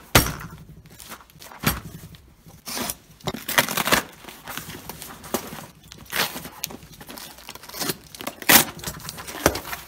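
A cardboard parcel being opened: a craft knife slitting the paper wrapping and tape, then the box flaps torn and pulled open, in irregular rips, scrapes and knocks.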